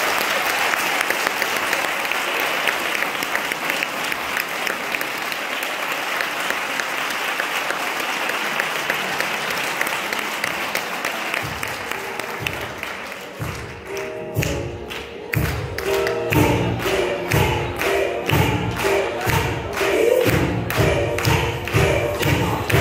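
Applause from an audience and cast, clapping steadily and slowly thinning out. About halfway through, recorded music with a regular, steady beat starts and takes over.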